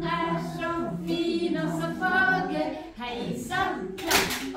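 A group of voices singing a cappella, several pitches together, with a short hiss about four seconds in.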